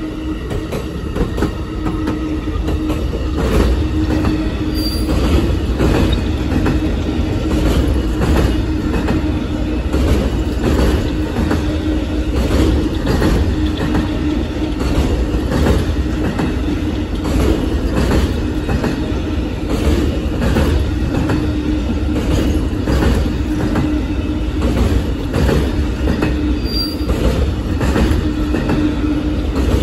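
Amtrak Auto Train rolling past, first its bilevel Superliner passenger cars and then enclosed autorack car carriers. The wheels click over the rail joints in a steady repeating rhythm above a continuous rumble, with a steady low tone held underneath.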